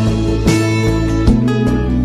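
Background music with steadily strummed acoustic guitar.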